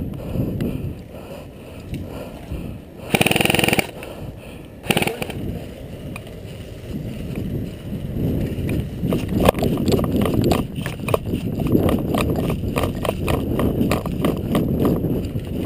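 A short burst of rapid airsoft rifle fire about three seconds in and a brief second shot or burst just before five seconds. After that, a player moving: running footsteps and gear rustling close on the body-worn microphone.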